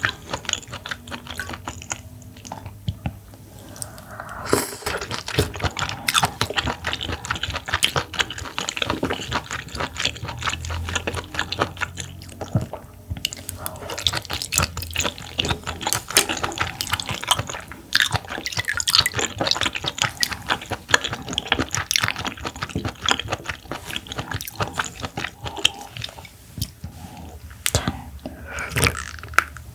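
Close-miked wet chewing and mouth sounds of eating raw clam meat: many small sharp clicks and squelches, pausing briefly a couple of times.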